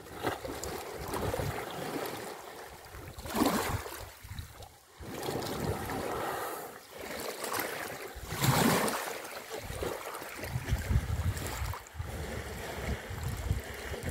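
Elephants splashing and sloshing about in a waterhole, with two louder splashes about three and a half and eight and a half seconds in. Wind buffets the microphone throughout.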